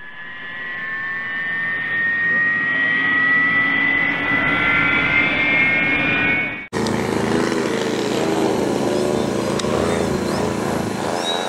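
A slowly rising electronic tone made of several pitches that builds and cuts off abruptly about two-thirds of the way in; then a radio-controlled An-2 biplane model flying overhead, its engine and propeller buzzing with a pitch that wavers as it manoeuvres.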